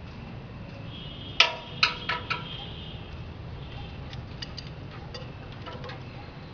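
A few sharp metallic clicks and knocks, a cluster of four about a second and a half to two and a half seconds in, then lighter ticks, from hands working at the steel housing of a sawdust hammer-mill grinder.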